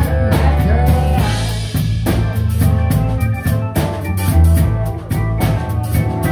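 Live band playing: a drum kit keeps a steady beat over bass guitar, electric guitar and keyboard, while a saxophone plays a melody line.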